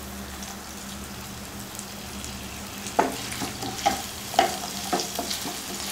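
Small onions (shallots) and curry leaves sizzling in hot oil in a nonstick pan. From about halfway in, a wooden spatula stirs them, knocking and scraping against the pan several times.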